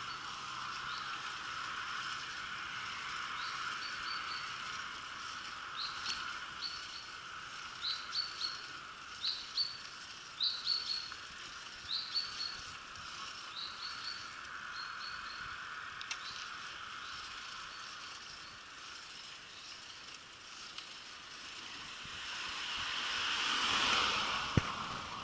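Steady rushing noise of a bicycle rolling along a street, with a small bird chirping in short, high, repeated notes from a few seconds in until about halfway. Near the end a passing vehicle swells and fades.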